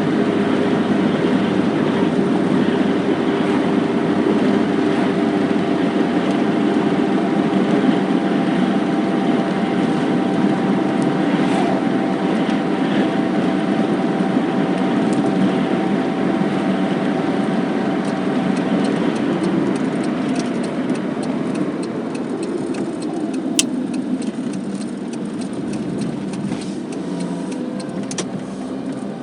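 Car driving, heard from inside the cabin: steady engine and road noise with a held engine note. About two-thirds through, the engine note fades and the noise eases off a little, and scattered light clicks come in.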